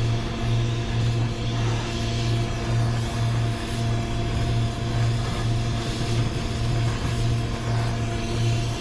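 A steady low mechanical hum that pulses in an even rhythm, with a few fainter steady tones and a hiss over it.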